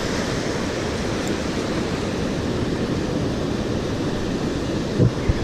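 Steady wash of surf on the beach, mixed with wind on the microphone, with two short low thumps about five seconds in.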